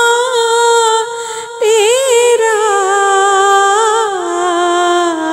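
A singer holds a long, wavering melismatic note between lines of an Urdu naat. The voice dips briefly about a second in, then carries on and steps down in pitch about four seconds in.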